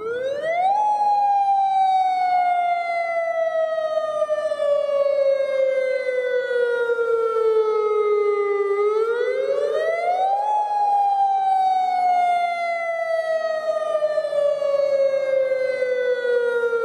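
Outdoor tornado warning siren sounding a wail: the pitch rises quickly, then falls slowly over about eight seconds, rising again about nine seconds in and falling once more. It starts suddenly at full volume.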